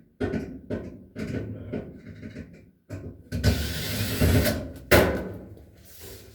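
Knocks, clicks and clatter from a clothes dryer being worked on by hand, metal panels and tools handled, with a rougher scraping stretch a little past halfway and a sharp knock near the end.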